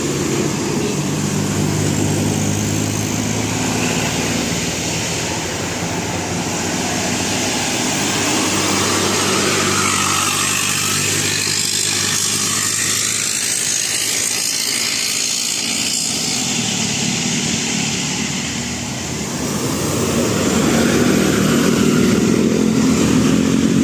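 Heavy road vehicles running and passing: a steady low engine hum, a broad rush of passing-traffic noise about halfway through, then engine sound building again near the end.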